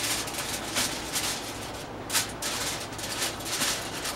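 Rustling and rubbing: a run of short noisy swishes, roughly two a second, with one sharper crackle about two seconds in.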